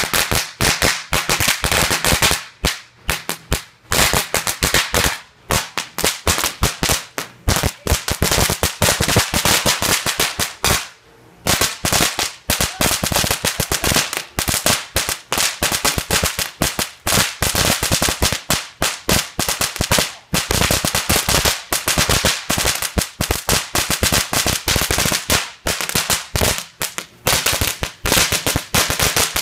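World Class Cracker Barrel crackling ground fountain firework burning: a dense, rapid crackle of tiny pops, with a short lull about eleven seconds in.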